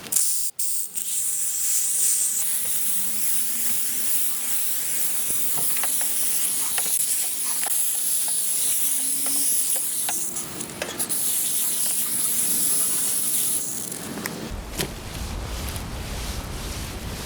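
A coil-cleaner spray gun spraying foaming coil cleaner onto heat pump coils, a steady hiss that stops about thirteen and a half seconds in. Afterwards a lower, rumbling noise with a few clicks.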